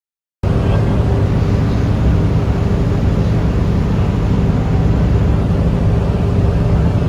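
Boat engine running steadily, heard on board with a constant low hum under a wash of noise; it cuts in sharply about half a second in after a moment of silence.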